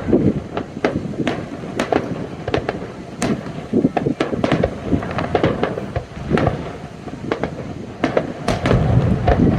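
Fireworks going off: many sharp bangs and crackles at irregular intervals over a low rumble, growing denser near the end.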